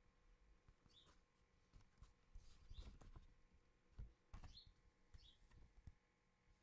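Near silence: faint rustles and soft clicks of a booklet and disc case being handled, with a few faint, short high chirps scattered through.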